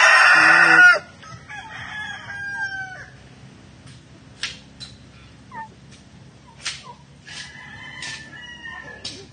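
A rooster crowing loudly, cutting off about a second in, then chickens clucking and calling more softly. A few sharp taps come through the middle of the stretch.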